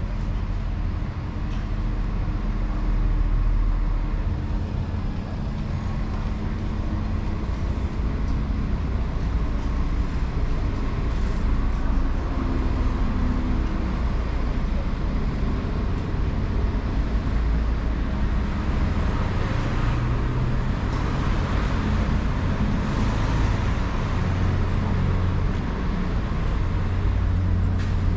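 Town street ambience: a steady low rumble of road traffic, with cars running along the street.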